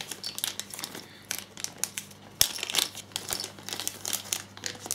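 Thin clear plastic parts bag crinkling in the hands as it is handled and emptied, with irregular small crackles and one sharper click about halfway through.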